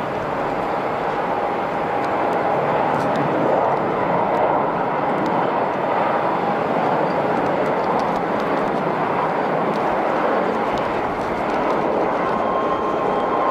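Jet airliner engines running, a steady loud rush with a faint high whine over it.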